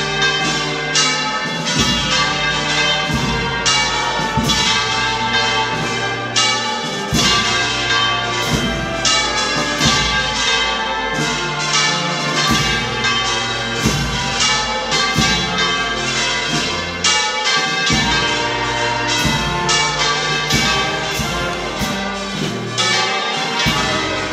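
Church bells pealing, with several strikes a second overlapping and each one ringing on.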